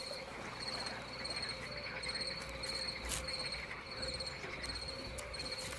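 Crickets chirping at night in short high-pitched trills that repeat about every half second, over a faint steady low hum.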